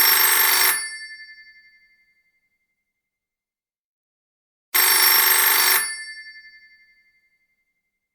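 Telephone ringing: two rings about five seconds apart, each about a second long and fading out over another second or so.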